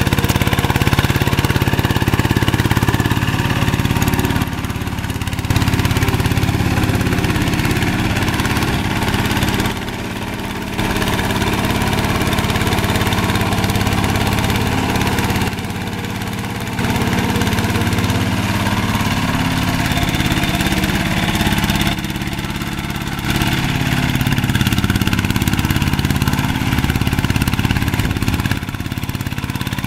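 Kubota 11 hp single-cylinder diesel engine of a two-wheel hand tractor running steadily under load, as its double cage wheels churn through a flooded rice paddy.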